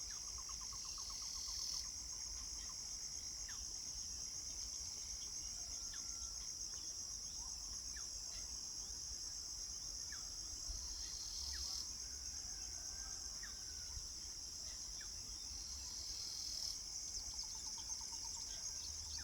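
A steady, high-pitched insect chorus trills throughout, swelling louder briefly at the start, around the middle and near the end. Scattered short bird chirps sound over it, and a faster repeating trill is heard at the start and again near the end.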